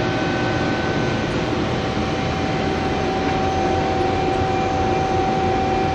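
Haas ST-30 CNC lathe running idle with its spindle stopped: a steady mechanical hum carrying a high, even whine. A second, higher tone drops out about a second and a half in.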